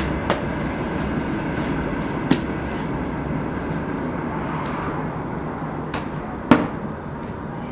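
Steady background noise with a few short sharp knocks. The loudest, about six and a half seconds in, comes as a round of flatbread dough is slapped onto the inner clay wall of a tandoor.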